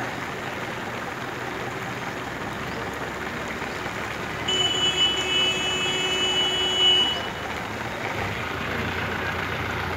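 Steady rush of heavy rain and running floodwater, with a vehicle horn sounding steadily for about two and a half seconds near the middle.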